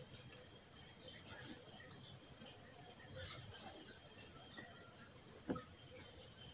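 Steady high-pitched trilling of insects, with a faint click about five and a half seconds in.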